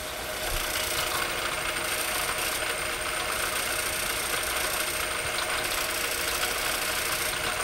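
Milling machine spindle at 700 RPM driving a 4-inch carbide face mill with seven indexable inserts through a surfacing cut on a metal block: a steady cutting noise with a thin high whine, the cut going smoothly.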